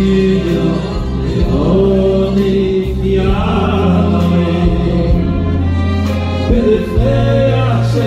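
A man sings a slow melody into a microphone, heard through the sound system, with long held notes over a low, sustained instrumental accompaniment.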